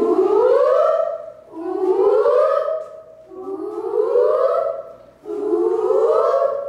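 A group of singers doing a vocal warm-up, their voices sliding up in pitch together and holding the top note, four times in a row, about one every second and a half.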